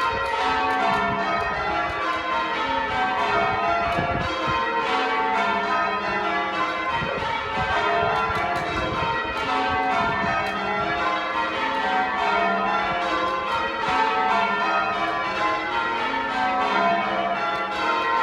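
Church bells ringing continuously, strike after strike at several different pitches, each ring overlapping the next.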